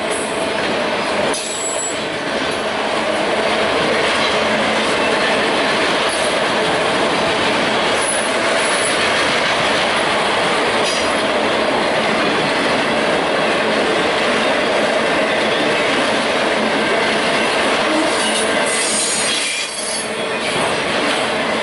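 Freight train of autorack cars rolling past at speed: loud, steady wheel-on-rail rolling noise with a thin steady whine. The sound dips briefly about a second in and again near the end.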